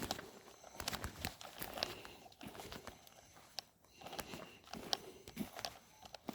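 Footsteps walking, with irregular sharp crunches and knocks.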